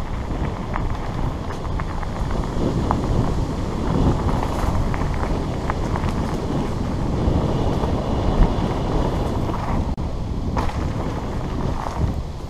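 Wind buffeting the bike-mounted microphone and mountain bike tyres rumbling over a dirt trail, with scattered clicks and rattles from the bike.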